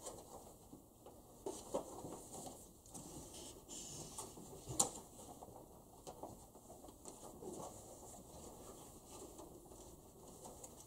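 Faint handling noises: soft rustling and scattered light clicks and taps, with one sharper click about five seconds in.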